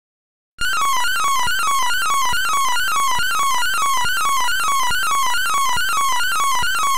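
Stereo audio signal that drives an oscilloscope's dot to draw a galloping horse: a loud, harsh buzzing tone whose pitch pattern falls and repeats several times a second, each repeat one trace of the drawing. It cuts in about half a second in after a brief silence.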